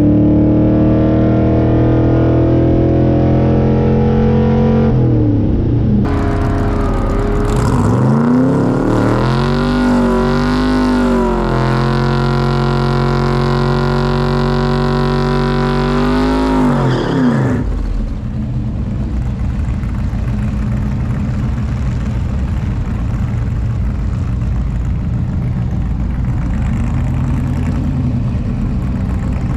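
A V8 car engine heard over several cut-together clips. It climbs in pitch under acceleration for the first few seconds, rises and falls in pitch from about eight to seventeen seconds in, then settles into a steadier, lower running drone for the rest.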